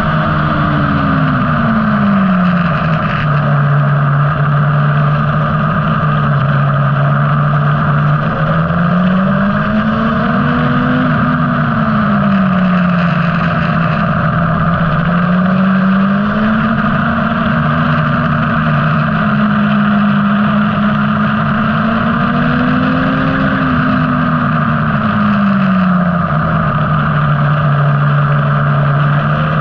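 Motorcycle engine heard from an onboard camera at speed, its pitch rising and falling smoothly over several seconds as the throttle opens and closes through the corners, under a steady rush of wind noise.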